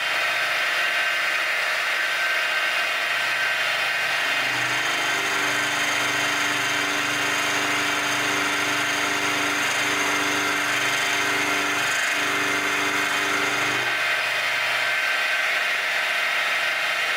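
Milling machine running steadily with its motor whining while an end mill cuts a slot in the flycutter's steel stock. A lower pulsing hum joins from about four and a half seconds in and fades out at about fourteen seconds.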